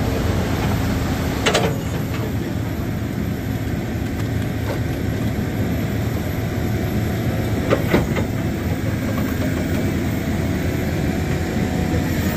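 Heavy vehicle engine running amid steady rumbling traffic and road noise, with two sharp knocks, one about a second and a half in and one near the eight-second mark.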